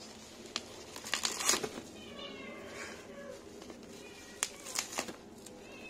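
Plastic bubble-wrap courier mailer being handled and torn open at its taped seam: crinkling, with sharp crackles about a second in and again near the end. Thin, wavering high-pitched cries come in between.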